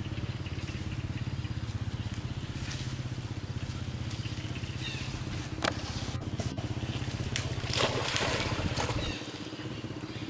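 A motor runs steadily with a low, fluttering hum, while a monkey swimming in the water splashes, loudest about eight seconds in.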